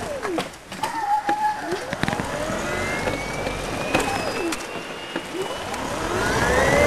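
Electric golf cart's D&D 12 HP separately excited DC motor whining and rising in pitch as the cart speeds up, getting louder near the end. Scattered clicks and short squeaks come before it.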